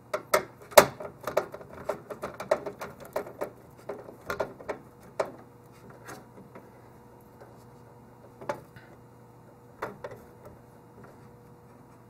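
Hand screwdriver tightening the motherboard's screws into the brass standoffs, making a quick, irregular run of small clicks and ticks for about five seconds, then a few scattered clicks. The screws are being snugged down hand tight, stopping at resistance so the board isn't cracked.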